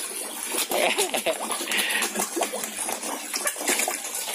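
Koi splashing and sucking at the water surface as they crowd a hand to take food, with many short irregular splashes and slurps.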